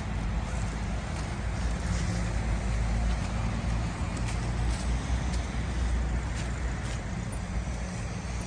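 Steady low rumble of road traffic, with a few faint scattered ticks.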